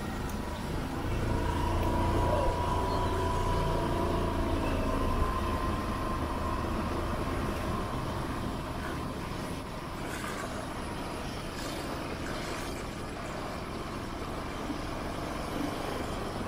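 A motor vehicle's engine running, loudest in the first several seconds and then easing off into steady traffic noise.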